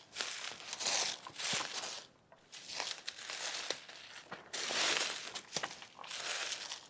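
Footsteps crunching through dry leaf litter on the forest floor, a rustling crunch about once a second with small sharp snaps of twigs.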